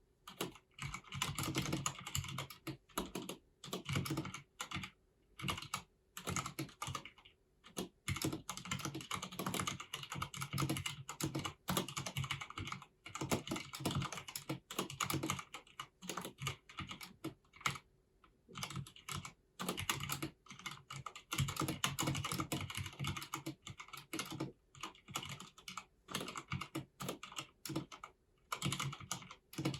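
Typing on a Filco Minila-R Convertible compact mechanical keyboard with Cherry MX switches: quick runs of keystrokes broken by short pauses.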